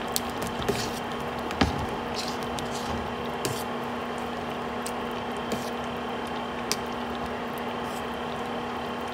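A pot of thick corn and shrimp soup, thickened with rice flour, bubbling on the stove: soft plopping pops and a few light clicks over a steady low hum, the loudest click about one and a half seconds in.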